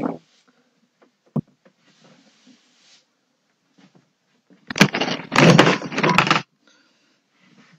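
Broom sweeping the floor close to the microphone: a knock at the start and another a second and a half later, then a loud scraping rustle lasting about two seconds past the middle.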